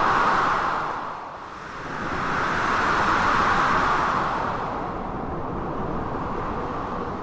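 Blizzard wind howling in gusts, swelling at the start, dipping about a second and a half in, then swelling again before easing, over a steady low rush of storm surf.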